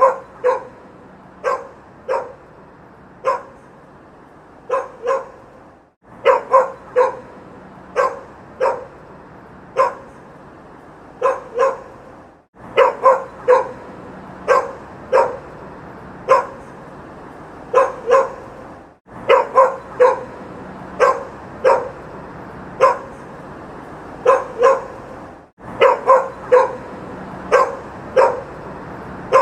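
A dog barking repeatedly in short single and double barks over steady city street background noise. The sound breaks off briefly about every six and a half seconds and starts again.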